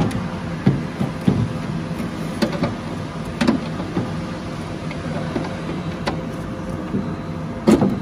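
Scattered clicks and knocks of a Renault Trafic rear door lock and its metal linkage rod being worked inside the door panel, the sharpest near the end, over a steady low hum.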